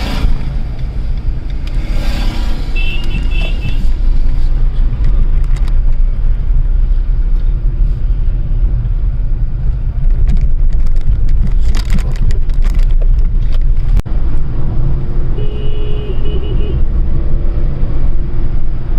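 Car driving on a road, a steady low rumble of engine and road noise. A short high tone sounds twice, about three seconds in and again near the end.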